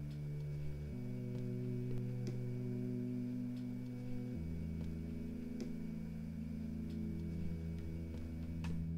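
Background film score of held low chords that change about a second in and again about four seconds in, with a few faint clicks.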